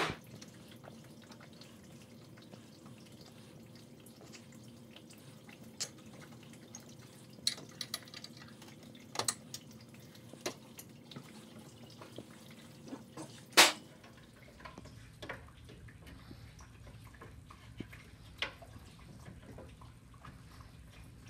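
Hand tools working on the radiator fittings in a car's engine bay: scattered light clicks and taps of a screwdriver on metal and plastic, with one louder knock about two-thirds of the way through.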